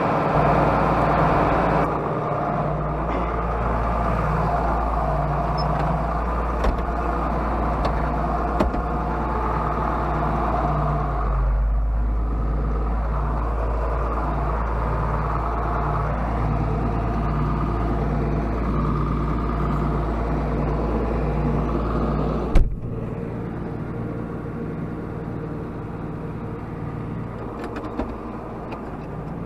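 Farm tractor's diesel engine running steadily. About three quarters of the way through there is a single sharp clunk, and after it the deepest rumble drops away and the engine runs quieter.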